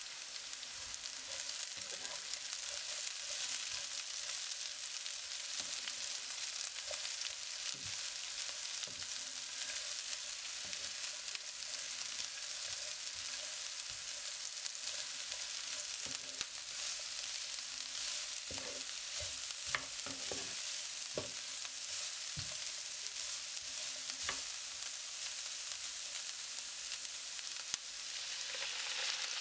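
Shredded cabbage, carrot and green chilies sizzling as they are stir-fried in oil, with a wooden spatula scraping and clicking against the pan now and then. Near the end a little water is poured into the pan.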